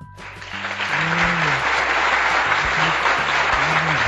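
Crowd applause, starting abruptly about a quarter of a second in and holding steady and loud.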